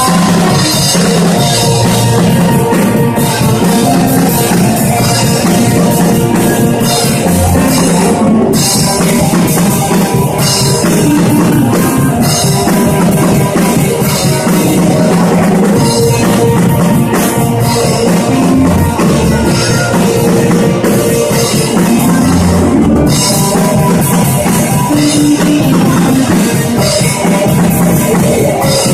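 Live rock band playing loudly: drum kit and electric guitars driving an instrumental passage with no singing.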